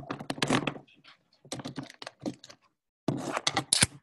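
Typing on a laptop keyboard: quick runs of key clicks in three bursts, with short pauses between them.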